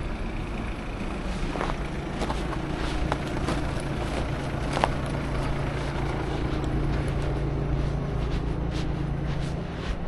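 A motor vehicle's engine running steadily with a low hum, over street noise with scattered sharp clicks, the loudest about five seconds in.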